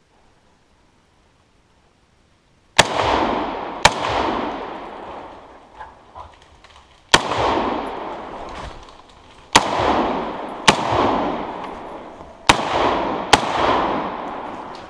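Seven rifle shots over about ten seconds, mostly in quick pairs about a second apart, each followed by a long echo rolling through the woods.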